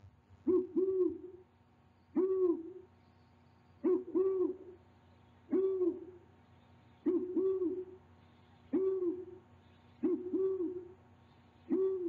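Great horned owl hooting: a regular series of deep, slightly arched hoots, alternating a quick double hoot with a single hoot about every one and a half seconds.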